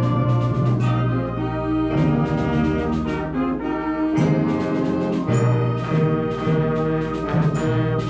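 Student concert band playing: brass, saxophones and clarinets hold full chords that change every second or so over a strong low brass line, with a new loud chord coming in about four seconds in.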